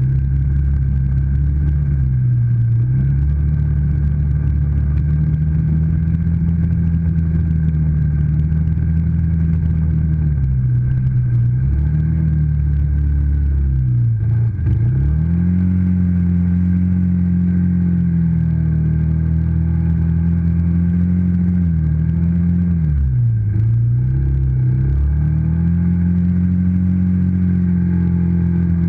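ATV engine running under varying throttle, its pitch dipping and climbing back up four times as it eases off and speeds up again.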